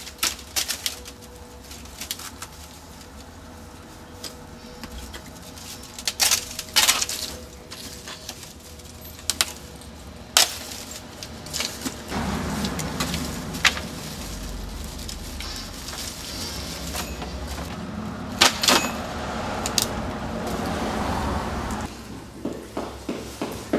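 Scattered sharp knocks and clinks of broken artwork debris being handled and tossed about. From about halfway a steady rushing noise builds underneath.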